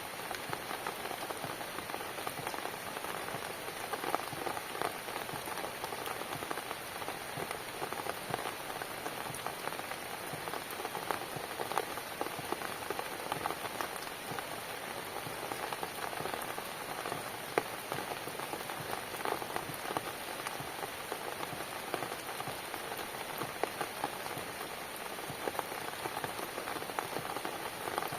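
Steady rain falling on a hard surface, a dense patter of many individual drops.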